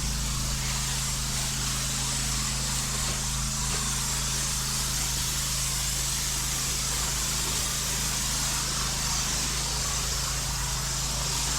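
Pressure washer spraying water in a steady hiss over the machine's constant low hum, cutting off suddenly at the end.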